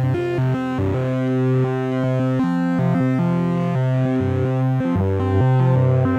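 Ambient music from an Optotronics modular synthesizer: several sustained, layered synth tones at once, stepping to new notes every second or so.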